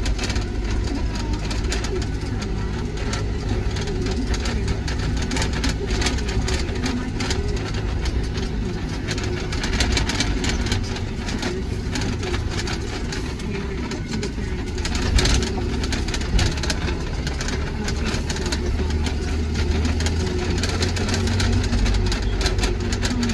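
John Deere tractor with a front-end loader driving along a rough dirt track, heard from inside the cab: the engine runs steadily under many small rattles and knocks. A little past halfway there is one brief louder knock.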